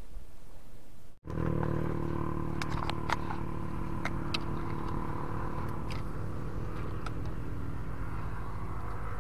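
A steady, unchanging engine hum like a vehicle idling, starting suddenly about a second in, with a few light clicks over it.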